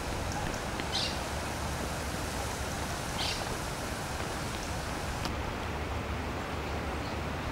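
Outdoor ambience by a flooded river: a steady rushing noise of wind and water, with two brief high bird chirps about one second and three seconds in. The hiss turns duller about five seconds in.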